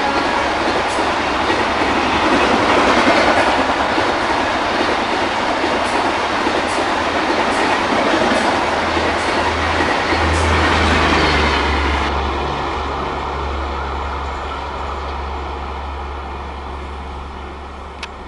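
Humsafar Express passenger coaches running past at speed: wheels rumbling, with a clack over rail joints about once a second. About two-thirds of the way in the sound fades steadily as the end of the train moves away.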